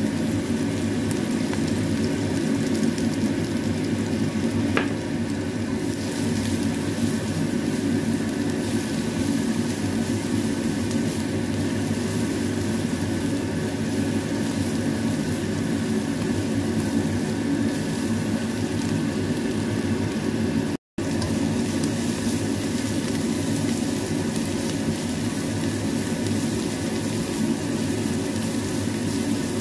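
Ground spice paste of shallots, garlic, dried shrimp and chilli sizzling as it fries in oil in a wok and is stirred with a spatula, over a steady low hum. The sound cuts out for a moment about two-thirds of the way through.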